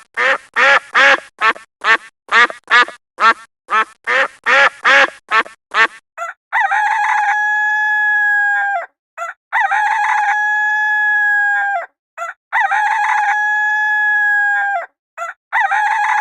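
A duck quacking in a quick, steady series for about six seconds, then a rooster crowing three times, each crow a few short notes running into a long, held note.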